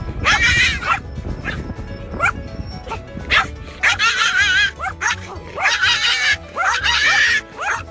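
Pomeranian barking and howling excitedly in about five long, wavering, high yelps, with background music underneath.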